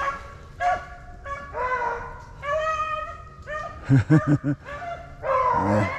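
Beagles baying and yipping on a freshly jumped swamp rabbit's trail as they work out which way it ran: a string of high, drawn-out calls, with a deeper, louder call about four seconds in and again near the end.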